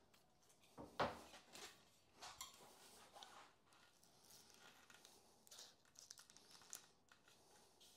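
Faint rustling and light snips of scissors cutting and handling tubeless rim tape, with scattered small clicks; the loudest about a second in.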